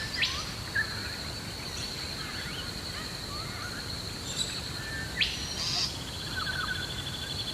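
Birds calling: two loud, short, rising calls, one at the very start and one about five seconds in, among scattered softer chirps, over a steady high whine.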